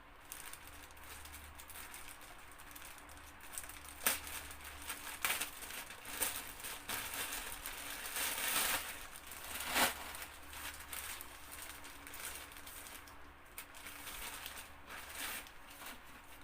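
Clothing packaging being crinkled and rustled by hand as a garment is unwrapped, with irregular rustling and a couple of sharper crackles about four and ten seconds in.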